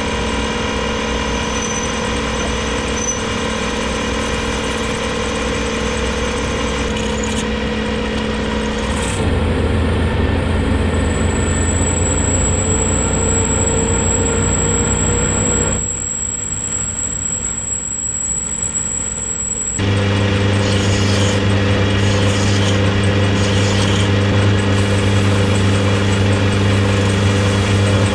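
Colchester metal lathe running, a steady machine drone with a gear whine. A thin high whistle comes in about ten seconds in and stops near twenty seconds, after which the hum is louder and heavier.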